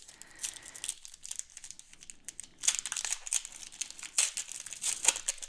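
Plastic wrapper of a 2013 Score football card pack being crinkled and torn open by hand: a run of sharp crackles, densest in the second half.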